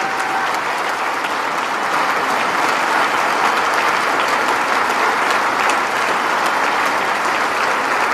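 A large audience applauding steadily, a dense, even mass of many hands clapping.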